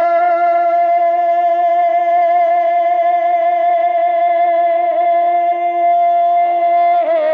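A man's voice holding one long sung note at a steady pitch, a drawn-out vowel in a manqabat (devotional Urdu poem) recitation. Near the end the pitch wavers as he moves into the next phrase.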